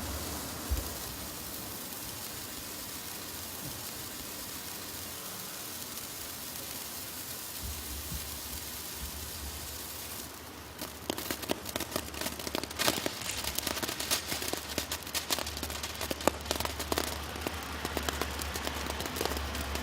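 Black Cat Morning Glory sparklers burning: a steady fizzing hiss that turns, about halfway through, into rapid irregular crackling.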